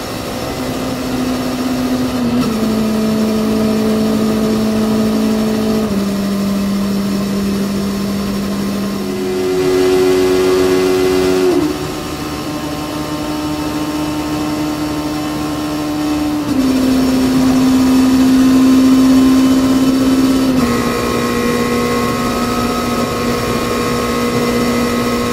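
Honda CB400 Super Bol d'Or's 400 cc inline-four engine running at steady high-rpm cruise, around 8,000 to 10,000 rpm. The engine note holds level for a few seconds at a time, then jumps to a new pitch as the speed and gear change, with a louder, higher-pitched stretch about ten seconds in.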